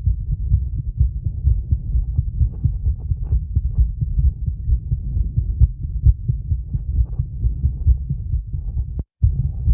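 A woman's heartbeat, heard as rapid, repeated low thuds. The sound cuts out completely for a split second near the end.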